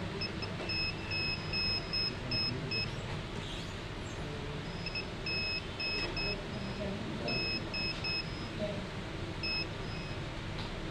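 Digital multimeter's continuity beeper giving short high beeps as the test probe is touched point to point along a phone motherboard's traces. The beeps come in quick runs, with a gap around four seconds in and a last one near the end. Each beep marks a connected, not open, line.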